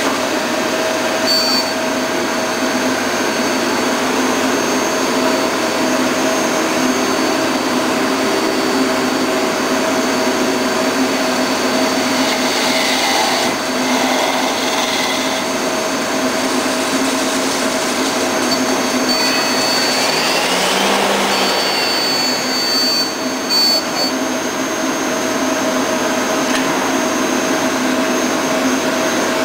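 Mazak Integrex 200SY CNC mill-turn centre running, a loud steady machine hum with a thin high whine that comes and goes. About two-thirds of the way through, a brief whine rises and falls.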